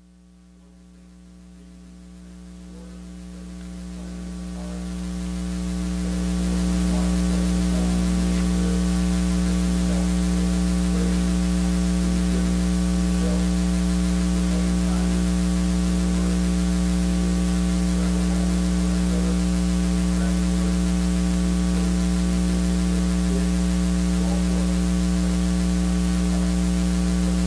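Steady electrical mains hum, rising in level over the first seven seconds or so and then holding steady.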